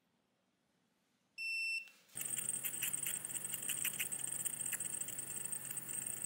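An essenzapura Lux oil diffuser beeps once as it is switched on, then its nebulizer starts running with a steady hum and hiss and an irregular crackling bubbling, the sign of an overfilled oil bottle covering the air intake.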